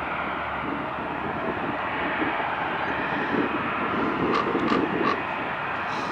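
Boeing 787-8 Dreamliner's jet engines running at taxi power as the airliner rolls slowly along the taxiway: a steady rushing drone. Three short chirps come about four to five seconds in.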